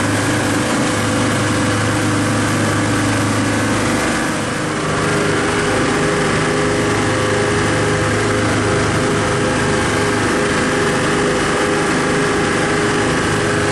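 The boat's twin Volvo Penta engines running steadily, a constant drone with a hiss over it, dipping briefly in level about four and a half seconds in.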